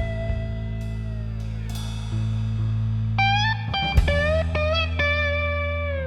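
Background music: a blues-style guitar over bass and drums, with held notes that slide and bend in pitch.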